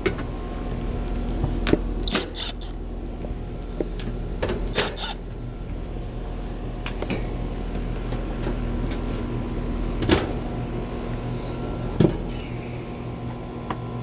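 Steady hum of running Carrier heat pump outdoor units, with scattered sharp clicks and knocks as tools and a unit's service panel are handled.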